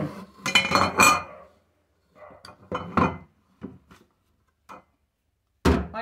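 Kitchenware being handled on a stone countertop: a glass bowl, a plastic blender jar and a spatula clinking and knocking. There is a loud clatter about half a second in, a few short knocks and clicks in the middle, and one sharp knock just before the end.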